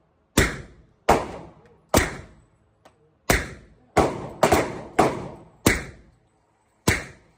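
Nine suppressed shots from a 1911 pistol in .45 ACP fitted with a homemade FTN3 suppressor, irregularly spaced. Each is a sudden report that fades within about half a second.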